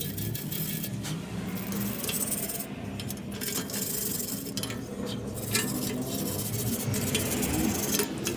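Small metal clinks and scraping over a steady low hum.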